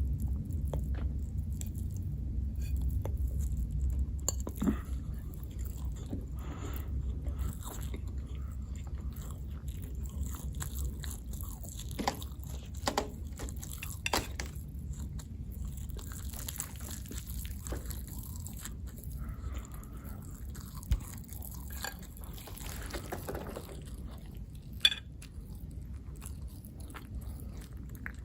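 Close-miked eating sounds: chewing and biting with wet smacks and occasional sharp clicks, over a low steady hum.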